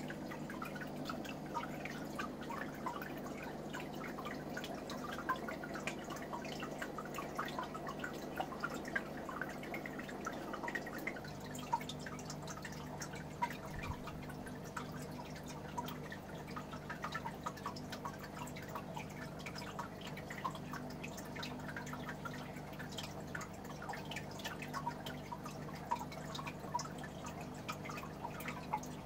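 Water dripping and trickling in a turtle aquarium, many small irregular drips over a steady low motor hum, typical of a running tank filter.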